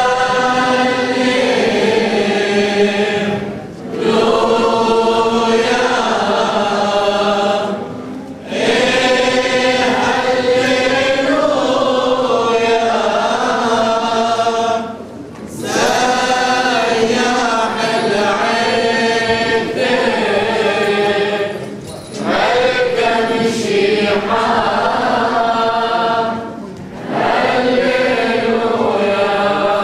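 A choir singing a liturgical chant in long phrases of several seconds each, with short pauses for breath between them.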